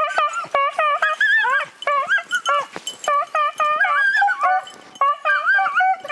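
Two beagles baying with rapid, high-pitched yelps, several a second and overlapping, as they run a hare's track through deep snow.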